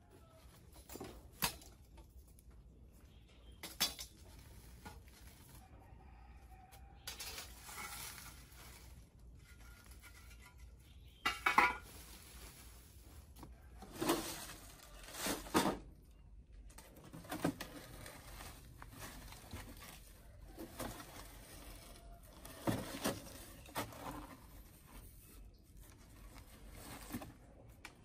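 Sparse knocks, scrapes and clatters of bricks, stones and rubble being moved by hand. The sharpest clatter comes about eleven and a half seconds in.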